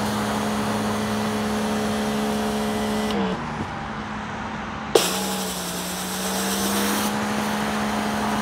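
Greenworks GPW3000 brushless electric pressure washer running with a steady hum, with the hiss of water spraying from a rotating surface cleaner onto concrete. About three seconds in, the motor's pitch sags and the spray hiss falls away. Near five seconds there is a sharp click, and the motor comes back up to pitch with the spray hissing again.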